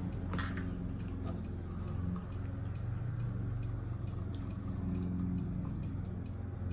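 Lawnmower engine running steadily as a low hum, with faint regular ticking over it.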